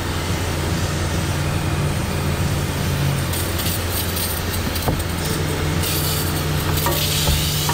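Aerosol brake cleaner sprayed through a trigger handle onto a metal oil pan in several short hissing bursts in the second half, over a steady low machine hum.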